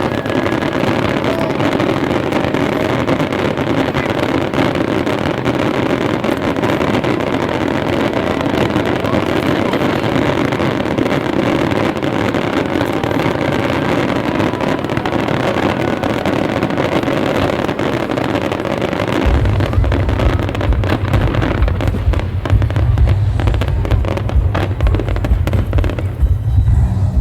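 Aerial fireworks display: dense continuous crackling and popping, joined about two-thirds of the way through by a heavy low rumble of booms that overloads the phone's microphone.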